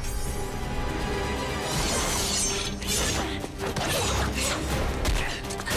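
Action-movie fight soundtrack: background music with repeated crashing impacts and whooshes from the fight sound effects.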